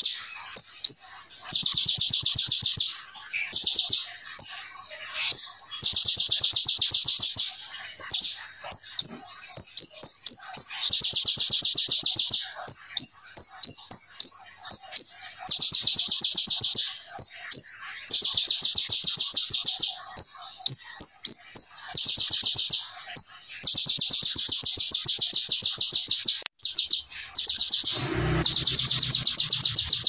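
Male Van Hasselt's sunbird (kolibri ninja) singing a fast, continuous song: long buzzing trills of one to two seconds, taken from the bar-winged prinia's 'brem' call, repeated again and again with quick sharp chirps between them. A low thump is heard about two seconds before the end.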